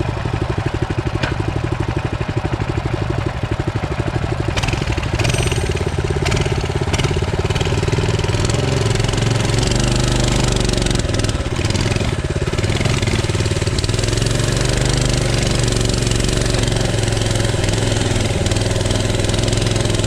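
Small single-cylinder four-stroke mini-bike engine running steadily, its pitch wavering a little now and then.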